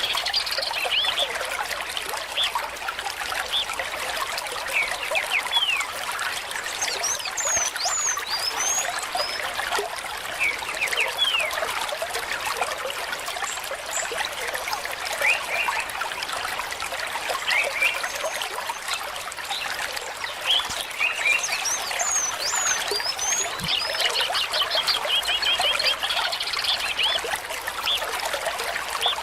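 Water trickling steadily, with many birds chirping over it in short, quick calls. A fast trill of repeated notes comes at the start and again near the end.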